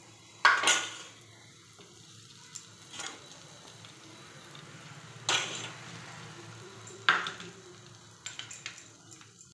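Sandwich bread toasting on a hot flat iron tawa, with a spoon scraping and clinking as it spreads a topping on a slice. Four loud, sudden sizzling scrapes come about two seconds apart, each fading within half a second, with a quick run of clicks near the end.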